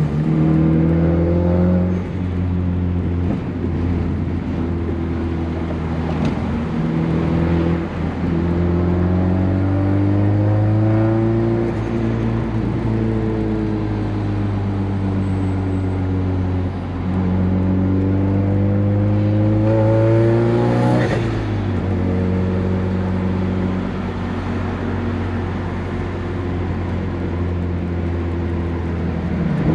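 Turbocharged 2.3 L four-cylinder Mazdaspeed3 running on a full CPE exhaust (catless downpipe, Triton catback, hood-exit external wastegate). Its revs climb slowly several times and hold, with a sudden drop and a short burst of noise about two-thirds of the way through.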